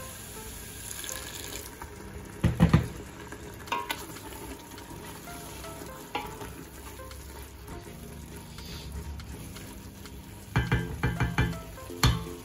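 Tomato sauce with pieces of meat sizzling as it fries in a stainless-steel pressure-cooker pot, the sauce base being fried down with a little water. A wooden spoon stirs it, knocking against the pot in short clusters about two seconds in and again near the end.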